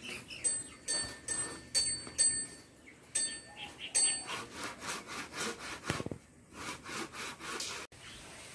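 Hand saw cutting through a rough wooden pole cut from a tree branch, in repeated back-and-forth strokes that quicken about halfway through.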